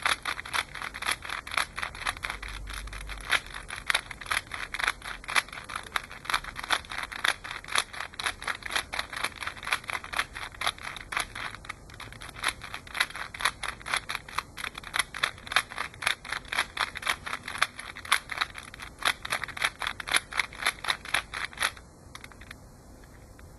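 Rubik's cube being turned over and over, its plastic layers clicking rapidly at about four or five clicks a second as the same two face turns are repeated; the clicking stops near the end.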